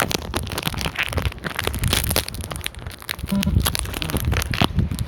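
Irregular crackling and rustling handling noise close to the microphone, a dense run of small clicks and scrapes over a low rumble.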